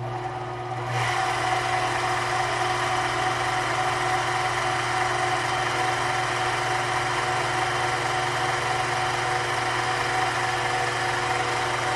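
Mini metal lathe running, its motor coming up to speed about a second in, then a steady hum and whine while the tool takes a light facing cut across the end of a brass part held in the chuck.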